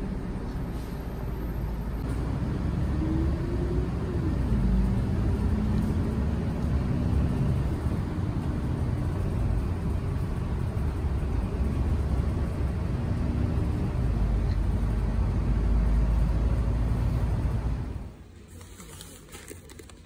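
Inside a moving city bus: steady low engine and road rumble, with the engine note rising and falling a few times. Near the end it cuts off to much quieter room sound.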